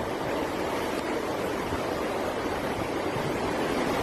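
Hurricane-force wind blowing in a steady rush, growing slightly louder.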